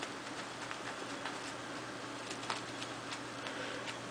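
A Ragdoll cat scuffling on carpet as it grapples and bunny-kicks a fabric catnip banana toy: irregular soft ticks and clicks, the sharpest about two and a half seconds in, over a steady low hum.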